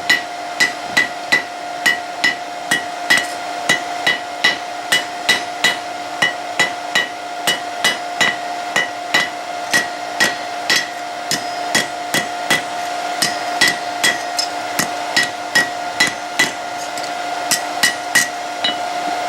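Hand hammer striking hot high-carbon steel on an anvil, steady blows at about two to three a second, each with a short metallic ring, as the tip is drawn out to a point; the blows stop near the end. A steady hum runs underneath.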